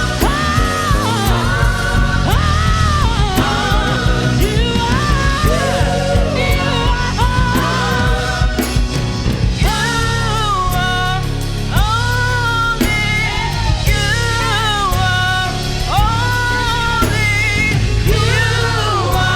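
Worship band music with singing: sustained, gliding vocal phrases over a steady bass and band accompaniment.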